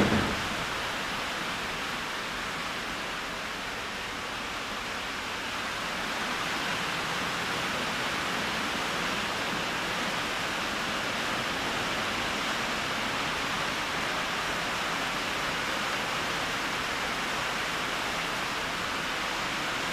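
Steady hiss of rain falling on a metal garage building. A single sharp knock comes right at the start.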